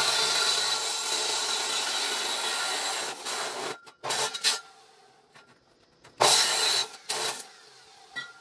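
Abrasive chop saw cutting through steel axle tube, a steady grinding whine that stops a little under four seconds in. The saw then runs in two more short bursts.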